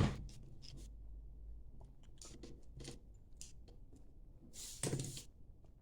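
Small metal governor parts of a 1926 Fairbanks Morse Model Z engine being handled and fitted by hand: scattered light clicks and clinks, with a louder knock and rattle about five seconds in.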